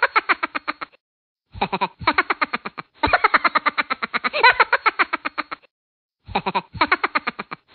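A rapid pulsing novelty sound effect, about a dozen pulses a second with a wobbling pitch, cutting off to dead silence twice.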